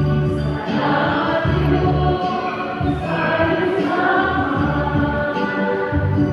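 A church choir and congregation singing a hymn together in a reverberant church, with long held notes that change about every second over sustained low bass notes.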